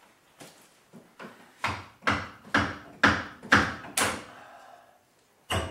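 Hammer striking metal parts of an engine in the engine bay: a few light taps, then six hard blows about half a second apart, each with a short metallic ring, and one more blow near the end.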